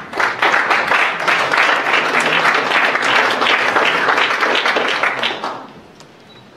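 Audience applauding, a dense patter of many hands that dies away about five and a half seconds in.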